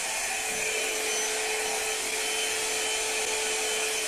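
Handheld hair dryer running steadily: a rush of blown air with a steady motor hum under it, stopping abruptly at the end.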